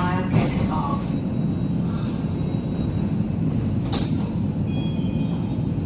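Dongguan Line 2 metro train heard from inside the car, rumbling as it brakes to a stop at a station, with a high steady squeal for a couple of seconds. About four seconds in, the car doors open with a sharp burst of noise, followed by short high beeping tones.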